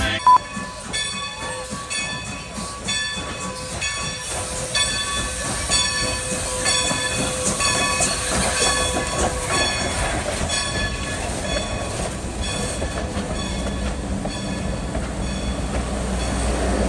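Steam locomotive's bell ringing steadily, about two strokes a second, with a low rumble from the train growing near the end. A brief sharp click sounds just as it begins.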